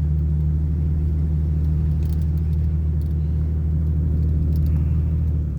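Four-wheel-drive truck driving, heard from inside the cab: a steady low engine and drivetrain hum with a few faint ticks.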